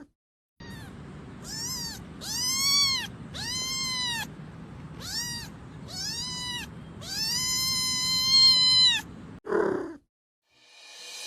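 A domestic cat meowing over and over: about seven meows that each rise and fall in pitch, the last one drawn out and the longest.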